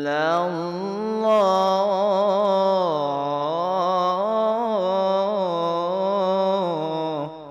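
Qur'an recitation (tilawah): one voice chanting a long, ornamented phrase, its pitch sliding and wavering, which breaks off near the end into silence.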